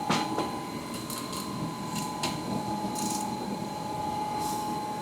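Scattered clicks and clinks of a wrench working on a rear differential's fill and drain plugs, which are very tight, over a steady faint hum.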